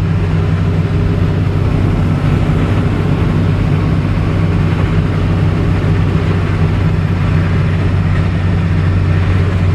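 5.9 liter Cummins diesel of a Ford F650 truck running steadily at highway cruise, about 1,700–2,000 RPM, with road noise, heard from inside the cab. It is a steady, even drone with no rattles.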